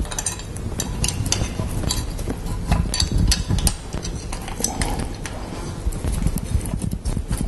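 Irregular metallic clicks and clinks of a hand tool on a small bolt as the lower timing-chain guide is fitted to the engine block, with low handling rumble underneath.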